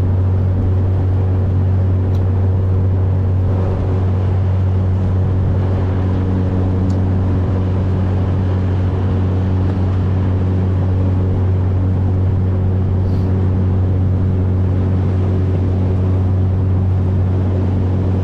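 Motorboat engine running steadily at cruising speed, a loud, even low drone with a constant pitch, along with the rush of the boat moving through the water.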